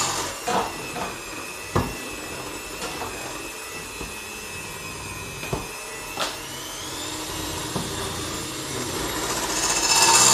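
Electric mixer running steadily in a bowl of cake or cookie mixture, with a motor whine that climbs a little in pitch past the middle. There are a few sharp knocks, and the sound grows louder and hissier near the end.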